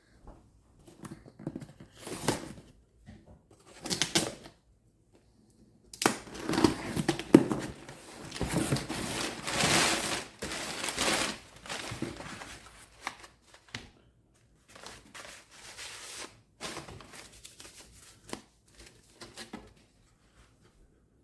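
Packing material crinkling and rustling as the cuckoo clock's carved wooden weights are unwrapped, in irregular bursts that are busiest in the middle.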